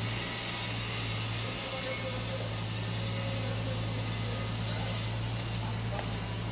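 Truck-mounted crane's engine running steadily while it lifts a steel H-beam: a constant low hum with a hiss over it.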